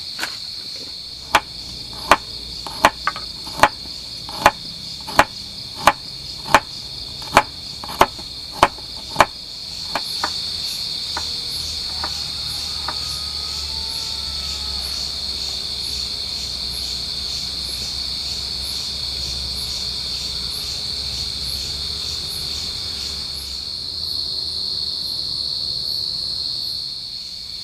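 A knife chopping seasonings on a cutting board: about a dozen sharp, evenly spaced knocks, roughly one every 0.7 seconds, stopping after about nine seconds. Crickets chirr steadily throughout, and after about ten seconds a steady low rushing noise comes up.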